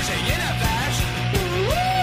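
Background rock music with a steady drum beat, bass and guitar, and a melody line that slides up in pitch about two-thirds of the way in.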